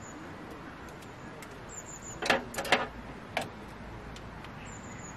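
Sharp plastic clicks and knocks from a small tripod desk fan being handled and set down on a camp table: three quick clicks about two seconds in, then one more a second later.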